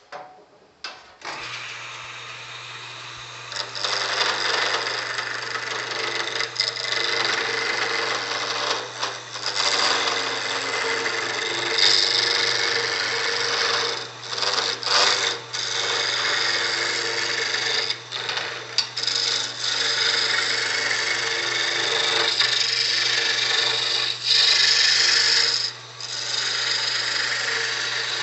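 A Rockwell Delta wood lathe's motor starts with a steady hum about a second in. From about three seconds in, a turning tool cuts into a spinning square hard maple blank with a rough, uneven, on-and-off cutting noise as the blank is roughed round.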